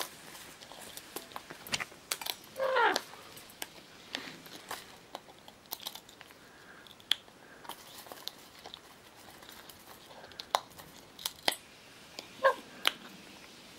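Scarlet macaw feeding from a stainless steel bowl: scattered beak clicks and taps on the metal and the food, with two short calls, the louder about three seconds in and a second near the end.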